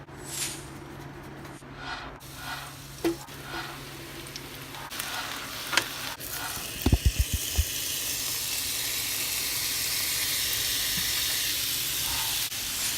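Fajitas frying in a hot pan: after some light clinks and knocks, a few dull thumps come about halfway through, then a steady sizzle carries on to the end.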